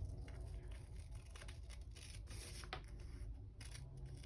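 Scissors snipping paper or washi tape to trim it, a few faint irregular cuts.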